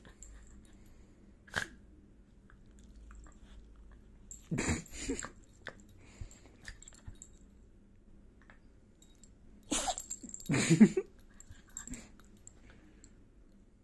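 Small dog vocalising in rough play: two short, loud bursts about five seconds apart, with faint mouthing clicks in between.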